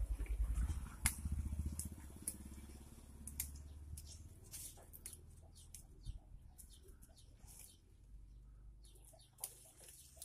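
Grapevine leaves and branches rustling, with scattered sharp clicks and snaps as the vine is pruned by hand. A low rumble of wind or handling on the microphone runs through the first few seconds, then fades.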